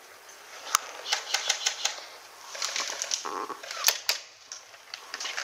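A run of sharp, irregular clicks and snaps, some alone and some in quick clusters. The loudest come about three-quarters of a second in and just before four seconds in.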